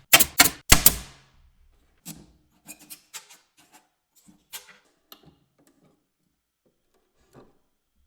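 Hard knocks on wood: three heavy strikes in quick succession at the start, then scattered lighter taps and clicks over the next few seconds, with one last tap near the end.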